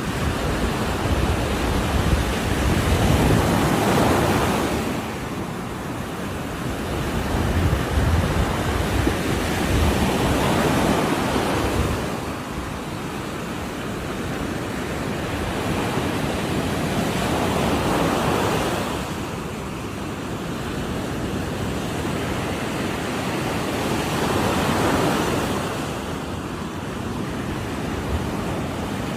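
Ocean waves breaking on a shore, the surf swelling and falling back in repeated surges every few seconds, with some wind noise on the microphone.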